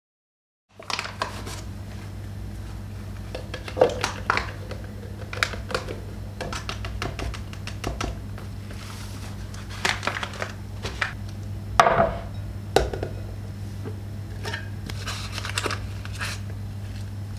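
Kitchen prep sounds: scattered clinks, taps and rustles of utensils and packaging while ingredients are handled, the sharpest knocks about four and twelve seconds in, over a steady low hum.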